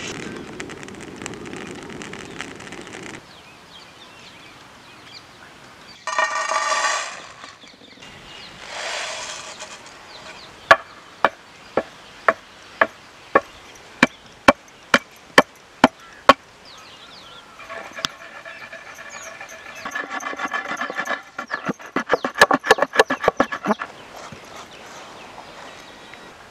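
A pestle pounding dry-roasted whole spices in a stone mortar: a run of about a dozen sharp knocks, roughly two a second, then a faster flurry of strikes later on. It opens with a spatula scraping the roasting spices around an iron pan.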